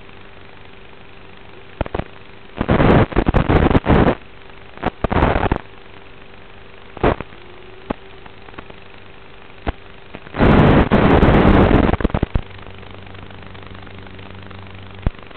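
Audio from an analog FPV video receiver: a steady faint hum broken by sharp clicks and three bursts of harsh static, about three, five and eleven seconds in. The static is typical of the video link breaking up as its signal fades.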